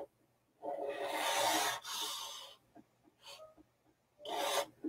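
A person's audible breaths close to the microphone: a long breath about a second in and a shorter one near the end, with a few faint ticks between.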